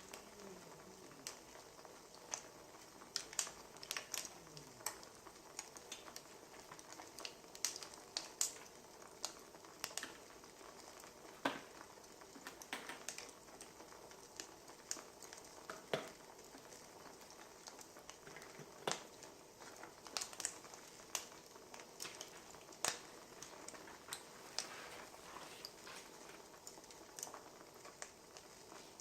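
Wood fire crackling: irregular sharp pops and snaps, a few every second or two, over a faint steady hiss.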